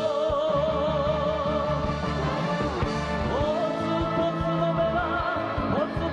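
Enka-style band music: a held melody line with a wide vibrato over steady accompaniment.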